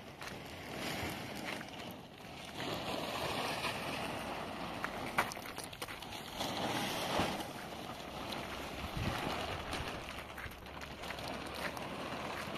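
Gusty wind rushing over the microphone, swelling and fading, with a few faint sharp clicks.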